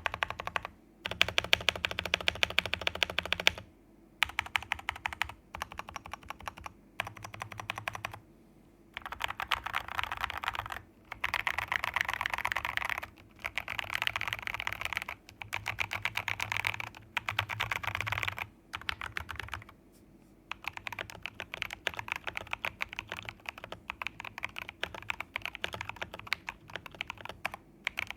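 Fantech MAXFIT81 mechanical keyboard being typed on fast, its lubed Jwick T1 tactile switches clacking under MT3 keycaps. The typing comes in runs of a few seconds with short pauses between them.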